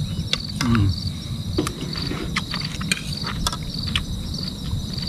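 Insects chirping: short chirps repeating about twice a second over a steady high trill, with a few sharp clicks and a low rumble underneath.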